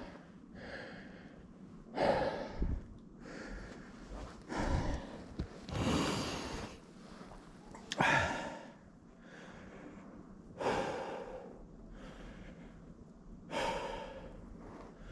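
Heavy breathing: about six deep, noisy breaths, each about a second long, coming every two to three seconds.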